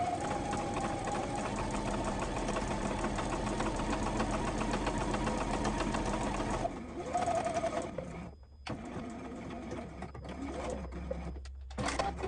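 JUKI sewing machine stitching steadily along a hem, stopping about seven seconds in. A short burst of stitching follows, the backstitch at the end of the seam, then scattered clicks and rustles as the machine and fabric are handled.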